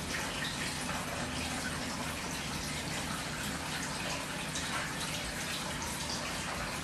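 Steady rushing noise, even and unbroken, with faint scattered ticks.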